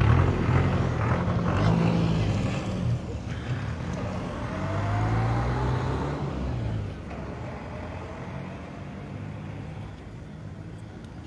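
Street traffic: motor vehicle engines running close by, louder for the first seven seconds or so and then quieter, with a faint rising whine about five seconds in.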